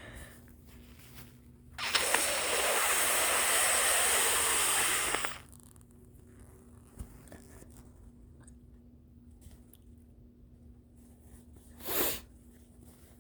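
A congested nose being blown hard into a tissue, one long steady blow of about three and a half seconds. A short second burst follows near the end.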